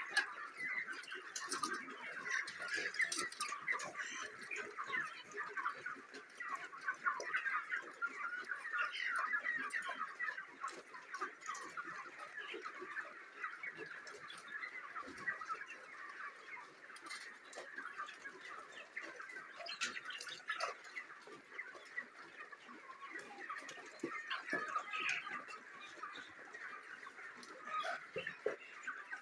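A flock of young white broiler chickens calling continuously, many short overlapping calls blending into a steady chatter.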